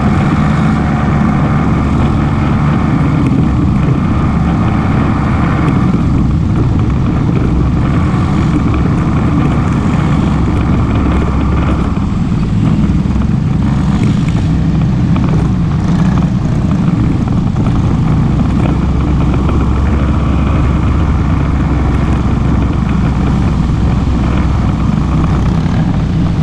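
ATV engine running steadily while the quad is ridden.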